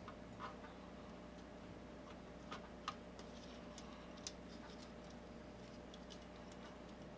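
A few faint, scattered small clicks and ticks of small plastic drive parts being handled as a laser unit and its plastic clip are worked onto the guide bar of a PS3 Blu-ray drive, the sharpest about three seconds in, over a steady low hum.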